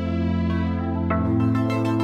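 Background music: a slow instrumental of held notes, with a new chord coming in about a second in.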